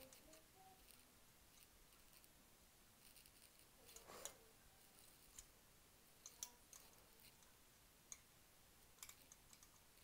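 Near silence with faint, scattered clicks of a hook against the clear plastic pegs of a rubber-band loom as rubber bands are looped over. The loudest click comes about four seconds in.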